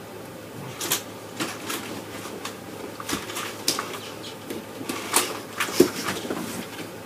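Irregular knocks, taps and scuffs of hands and shoes against a door frame and closet doors as a person braces and climbs between them, the loudest knock near the end as he pushes off to drop down.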